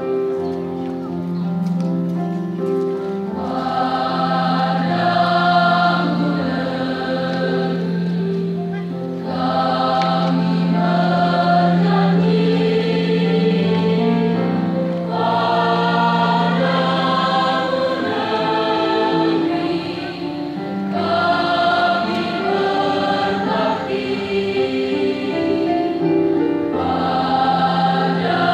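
A large mixed school choir singing in phrases, accompanied by an electronic keyboard holding a steady low note beneath the voices.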